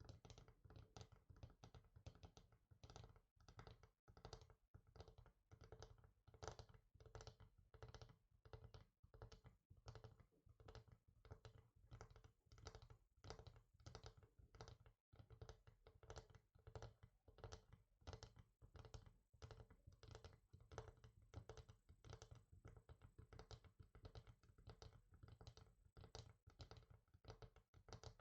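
Soft, rapid fingertip tapping on a hard surface, several light taps a second in an uneven flurry, with a momentary break about halfway.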